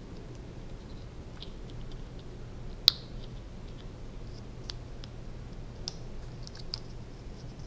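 Scattered small clicks and ticks as thin plastic-coated wires are looped and bundled by hand against a plastic window-blind headrail; one sharp click about three seconds in is the loudest.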